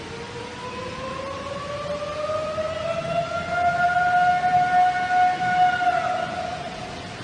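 A long, drawn-out howling call that rises slowly in pitch for several seconds, holds, then fades near the end. It is called a very loud roaring sound in the woods, which many viewers take for Bigfoot.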